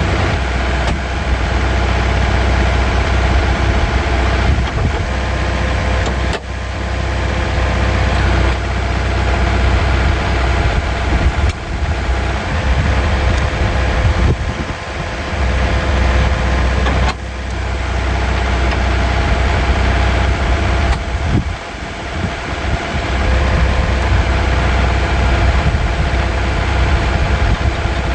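Tractor engine running steadily, low and loud, as the tractor is backed into position to hook up to the wood chipper's PTO shaft.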